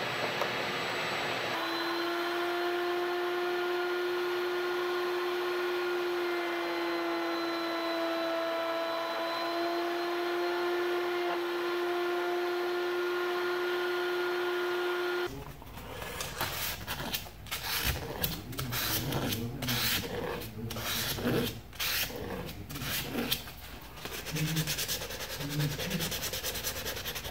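Woodworking router in a router table running steadily with a high, even whine while routing grooves with a bowl-bottom bit. About 15 seconds in it cuts off suddenly, followed by quick, irregular rubbing strokes of sandpaper on the wooden cutting board.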